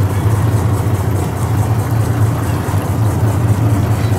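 Motorboat engine running steadily, a constant low hum with no change in speed.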